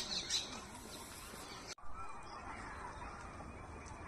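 Birds calling: a few harsh calls at the start, then, after a sudden cut, fainter whistled calls over steady outdoor background noise.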